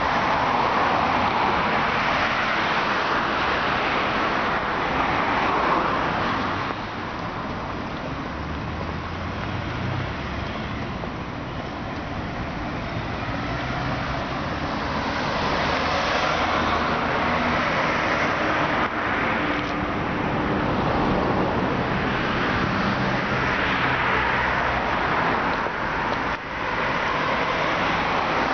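Road traffic on a multi-lane city street: cars passing one after another, the tyre and engine noise swelling and fading several times.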